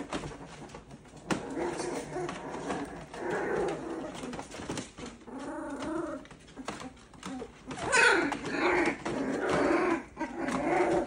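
Boxer puppies growling and whining as they play-wrestle, in a run of short squeaky cries, with a louder, higher yelp about eight seconds in.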